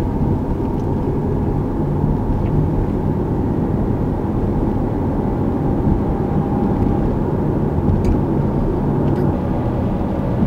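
Steady engine and road noise inside the cabin of a car as it drives along.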